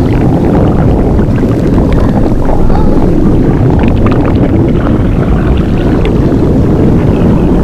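Blueberry inflation sound effect: a loud, steady low rumble with scattered small creaks and clicks over it.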